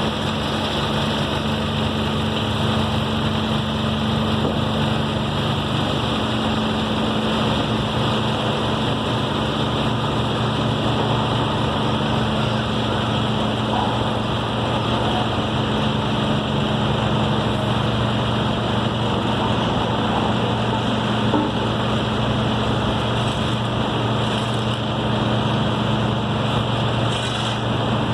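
Engine of road-construction machinery running steadily with a constant low drone.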